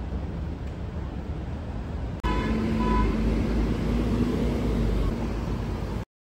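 Busy city street traffic, with cars and buses running past. About two seconds in the sound jumps louder and a vehicle horn toots briefly. Near the end the sound drops out for about half a second.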